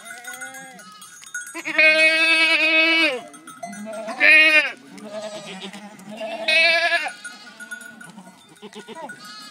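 Livestock bleating: three loud, quavering bleats, the first over a second long, with fainter bleats from other animals between them.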